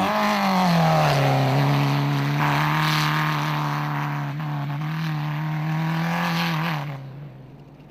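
Off-road racing buggy's engine running hard, its pitch dropping slightly in the first second and then holding steady before fading out near the end.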